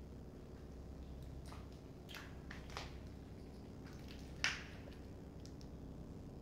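Footsteps crunching on a debris-strewn floor: a few soft scraping crunches, then one sharper, louder crunch about four and a half seconds in, over a faint steady low hum.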